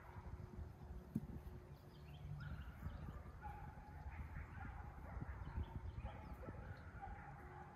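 Quiet outdoor ambience: a low wind rumble on the microphone with scattered faint animal calls.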